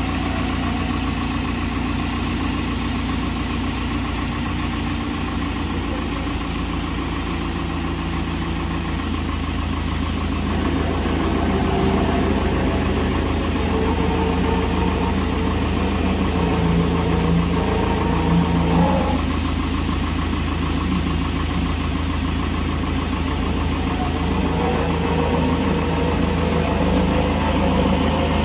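Powertrac Euro 60 Next tractor engine running steadily while its telescopic front loader's hydraulic boom is worked. About ten seconds in it gets louder, with a whine that shifts in pitch as the boom extends and lifts.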